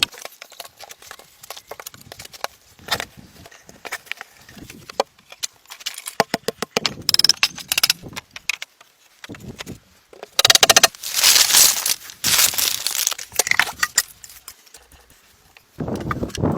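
Wood being worked by hand: scattered knocks and cracks, then a loud rasping, scraping stretch of about three seconds starting about ten seconds in, with another loud rasp starting near the end.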